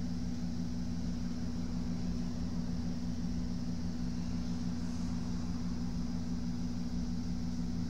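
Steady low machine hum with a fainter, steady high hiss, unchanging throughout: the background drone of running equipment in a workshop.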